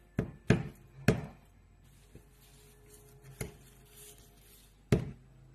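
About five sharp knocks and taps from handling a bucket of anchovies while salt is sprinkled over them: three in quick succession near the start, a faint one midway and a loud one near the end.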